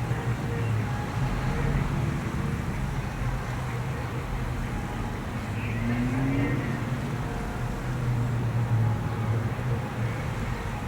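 Road traffic: a steady low engine rumble, with a short rising tone about six seconds in.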